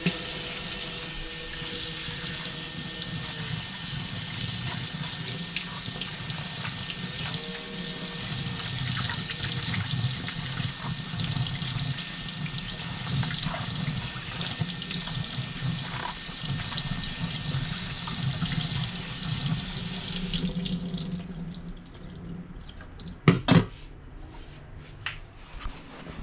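Kitchen tap running steadily into a stainless steel sink, with okra being rinsed by hand in a metal colander under the stream. The water stops near the end, followed by two sharp knocks close together and a few lighter clicks.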